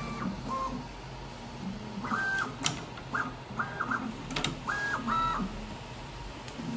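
Prusa XL 3D printer running a print: its stepper motors give short whines, each a fraction of a second, as the print head makes quick moves, over a low steady hum. A few sharp clicks, the loudest a little under three seconds in.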